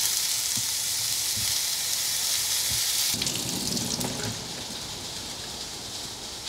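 Sausages, sweet potato slices and mushrooms sizzling in a frying pan as chopsticks turn them. About three seconds in, this gives way to quieter tap water running through a stainless steel colander into the sink.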